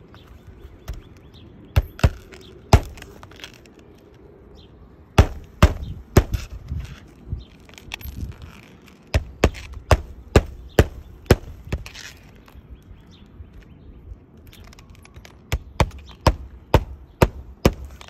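Claw hammer striking during an asphalt shingle repair: sharp blows in short runs of three to six, about two a second, with pauses and faint rustling between.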